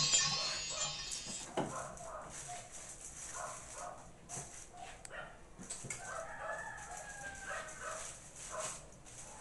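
A rooster crowing once, about six seconds in, among scattered short faint background sounds.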